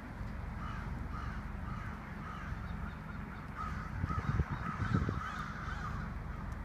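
A flock of crows cawing over and over, many birds calling at once as they gather to roost at dusk. A steady low rumble lies underneath, with a couple of louder low thumps on the microphone about four to five seconds in.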